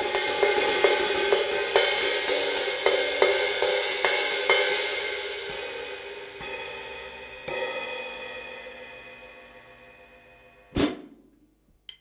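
Handmade 16-inch B20 bronze hi-hat cymbals struck over and over, about two strokes a second, in a bright ringing wash. After about four seconds the strokes thin out to a few single hits and the ring fades away, then a short sharp ding sounds near the end.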